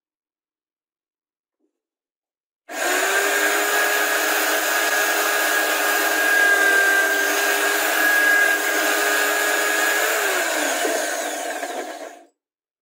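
Electric drill in a drill-press stand running and boring a small hole through plywood: a steady motor whine over the hiss of cutting, starting suddenly about three seconds in. Near the end the whine drops in pitch as the drill slows, and the sound stops abruptly.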